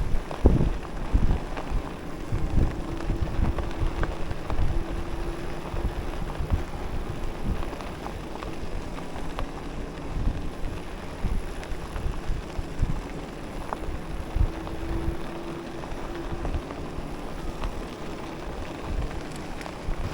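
Wind buffeting the microphone and the rumble of a fat-tire e-bike rolling along a dirt trail. A faint steady hum comes in twice, for a few seconds each time.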